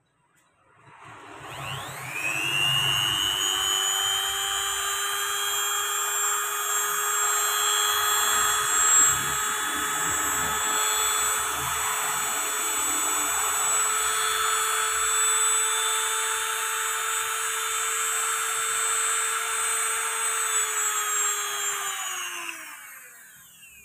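Small handheld mini grinder (rotary engraving tool) motor spinning up, running steadily with a high whine for about twenty seconds, then winding down near the end.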